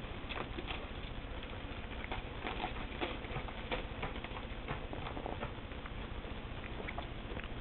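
Ferrets play-fighting, a rapid, irregular patter of scrabbling paws and small taps, busiest in the first half and thinning out after about five seconds.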